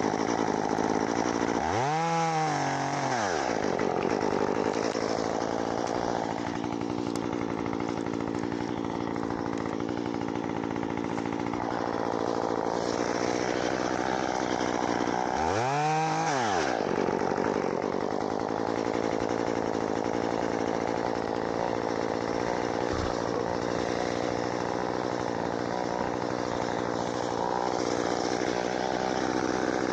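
Chainsaw running steadily, revved up and back down briefly about two seconds in and again about halfway through.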